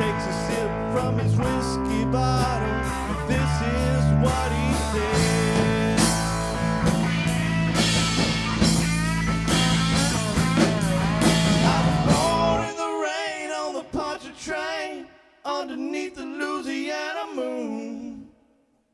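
A live rock band (electric bass, drum kit and electric guitar) playing an instrumental section of the song. About two-thirds of the way in, the bass and drums drop out, leaving a quieter, sparse melodic line that fades almost to nothing just before the end.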